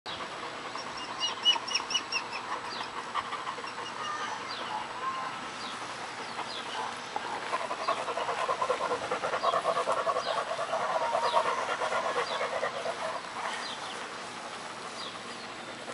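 Young German Shepherd dogs panting rapidly, loudest for a few seconds midway. Birds chirp throughout, with a quick run of repeated notes near the start.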